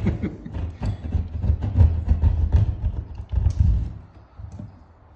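Hand pad saw cutting through fresh plaster and plasterboard in short, uneven strokes, which stop about four seconds in.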